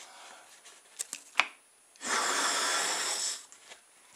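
A breath blown hard into a balloon to inflate it: one loud rush of air lasting about a second and a half, after two small clicks of handling.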